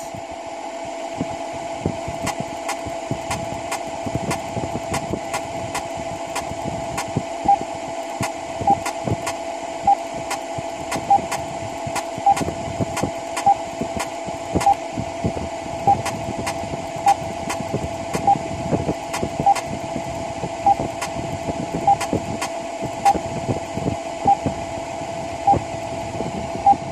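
Engine-room sound of a ship engine-room simulator with its diesel generators running: a steady hum with a sharp tick about every 1.2 seconds and fainter clicks in between.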